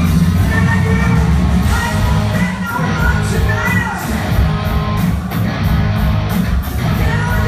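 Live rock band playing: electric guitars, bass guitar and drums, with a woman singing over them.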